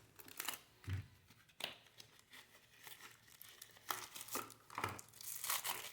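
Packaging being handled: intermittent crinkling and rustling, with a few sharper crackles and a busier stretch near the end.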